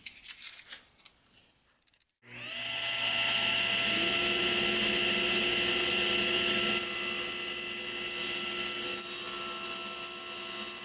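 A few light clinks of handling, then a small power-tool motor starts about two seconds in, spins up and runs steadily.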